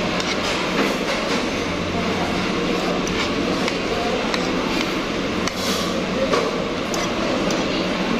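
Steady restaurant dining-room din with a hum, with frequent short clinks of a metal spoon and fork against a plate.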